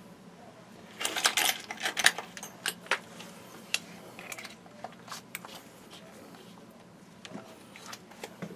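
Light metallic clicks and clinks of small steel parts being handled, busiest about one to three seconds in and then sparser. The parts are likely screwdriver bits, one of them with a worn, stripped tip.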